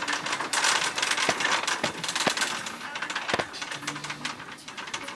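Red plastic shopping cart rattling and clicking as it is pushed along, with irregular sharp clicks over a steady hiss.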